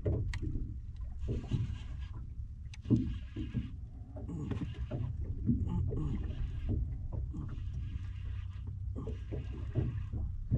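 Water lapping and slapping against the hull of a small boat, with irregular knocks over a steady low rumble.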